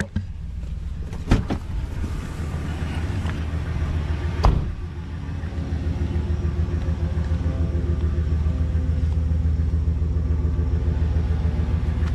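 Van engine idling steadily, with a sharp click about a second in and a door slamming shut about four and a half seconds in.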